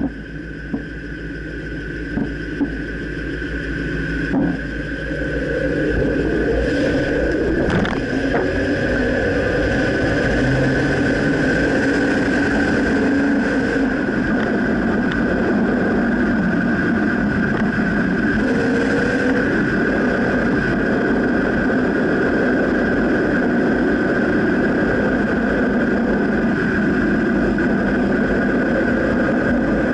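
2009 Dodge Ram pickup on the move, with steady engine and road noise and a few sharp clunks in the first several seconds. The owner suspects the clunk comes from the rear right control arm.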